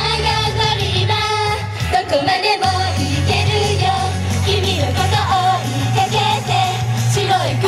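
Female idol group singing an upbeat J-pop song over a backing track with a steady bass line.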